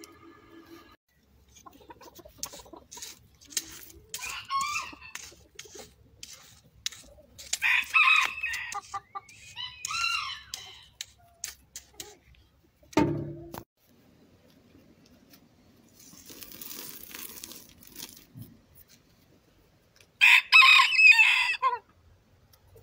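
Chickens calling: several calls in the middle, then a loud rooster crow about a second and a half long near the end.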